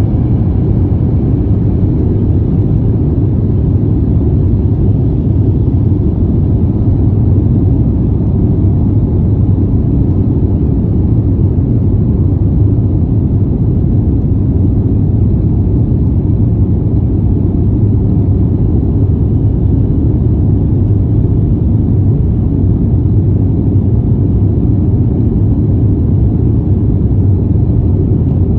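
Cabin noise of a jet airliner at takeoff thrust: a loud, steady low rumble of the engines and the rushing air as the plane lifts off the runway and climbs.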